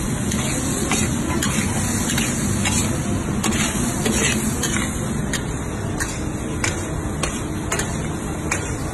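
Metal ladle and spatula stirring fried rice in a large wok, clinking and scraping against the pan about twice a second over a steady sizzle of frying.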